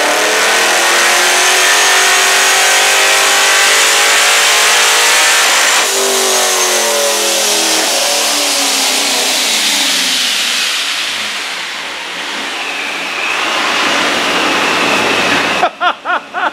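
Procharger-supercharged LSX 376-B15 V8 of a C6 Corvette making a full-throttle run on a chassis dyno. The engine revs up steadily with a high supercharger whine climbing alongside. About six seconds in, the throttle closes and the engine and blower wind down over several seconds.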